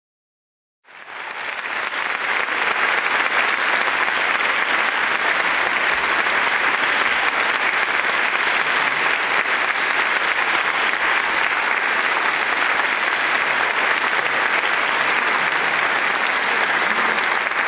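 Large audience applauding steadily, starting about a second in after a moment of silence.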